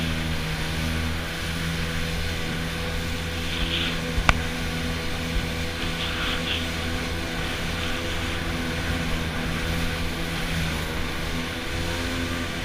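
Jet ski engine running at a steady cruise, a constant drone over the rush of water and wind. A single sharp knock about four seconds in.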